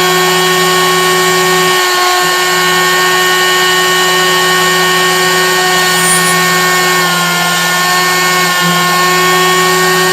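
Stepcraft 600 CNC machine's spindle running with a steady whine while it drills holes through a single-sided PCB. A lower hum under it drops out briefly twice, about two seconds in and near the end.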